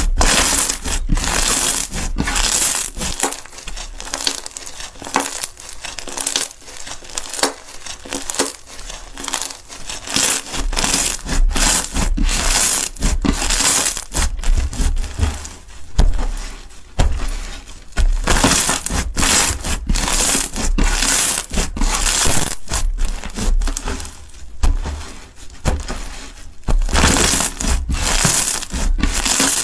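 Crunchy slime being squeezed and pressed by hand: dense, irregular crackling and crunching, many small pops in quick succession, coming in waves with short pauses between.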